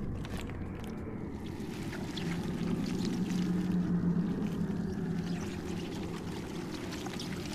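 Cartoon sound effect: a steady, wet, churning rumble, with a low hum that swells in the middle and fades again.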